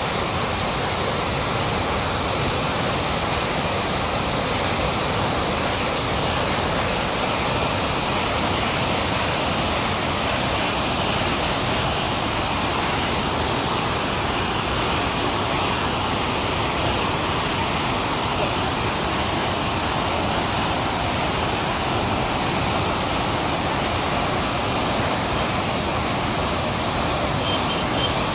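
Floodwater pouring through the open spillway shutters of a reservoir dam and churning into white water below: a loud, steady rush of falling water that holds even throughout.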